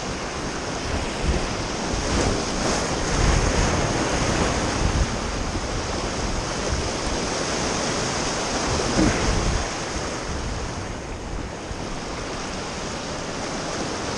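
Ocean surf breaking and washing over rocks, surging louder a few seconds in, with wind buffeting the microphone.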